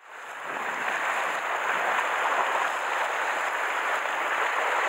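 Steady wash of sea waves breaking against shore rocks, fading in over the first second and then holding even.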